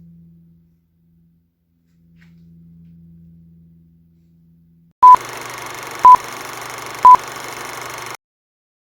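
Three short, loud electronic beeps at one steady pitch, a second apart, over a hiss that starts with the first beep and cuts off suddenly about a second after the last. Before them there is only a faint low hum.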